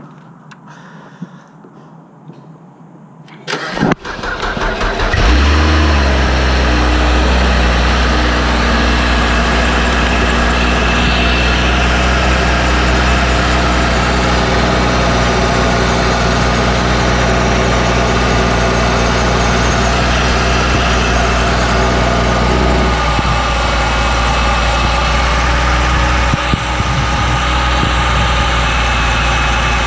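BMW 328xi's 3.0-litre straight-six cranked by the starter about four seconds in, catching within a second or two and then idling steadily: the first start after fitting a new drive belt.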